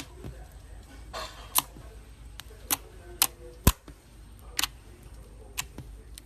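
Slime being squeezed and worked by hand, giving a series of sharp clicking pops, about seven at uneven intervals.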